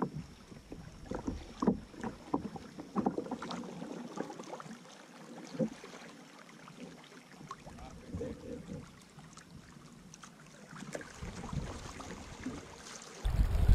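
Canoe paddling: irregular splashes and short knocks of the paddle in the water and against the hull. A low rumble of wind on the microphone comes in suddenly near the end.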